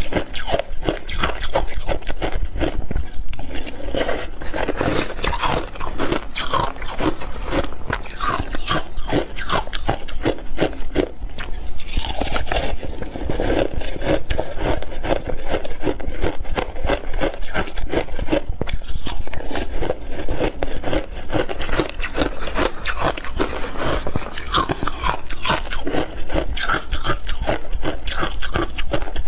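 Shaved ice crunched and chewed in big mouthfuls: a dense, continuous run of loud, rapid crunches.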